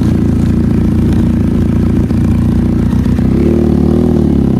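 Benelli motorcycle engine running loud through its stock exhaust, a steady note that rises about three seconds in as the engine revs up.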